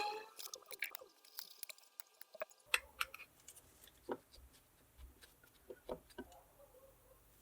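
Faint scattered clicks and light taps as small parts of a diesel injection pump are handled and fitted by gloved hands, with a brief squish at the very start.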